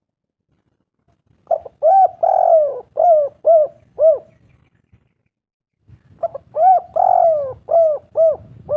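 Spotted dove cooing: two phrases of short arching coos, each with one longer drawn-out note in the middle, the second phrase starting about four seconds after the first.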